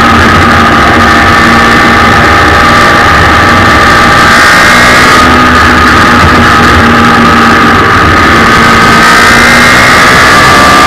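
Suzuki Hayabusa 1300 inline-four motorcycle engine in a race car, running loud at high revs under way on track, heard onboard with wind noise. Its pitch dips slightly mid-way and rises again near the end.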